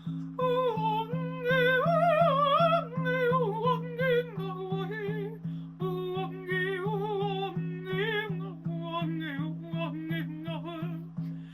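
Wordless improvised female singing, sliding between notes with a wide wavering vibrato. Under it runs a steady low drone accompaniment that pulses evenly several times a second.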